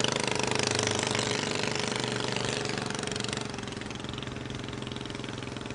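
Monowheel motorcycle's modified 5-horsepower Briggs & Stratton engine running steadily, growing fainter from about three and a half seconds in as the machine rides away.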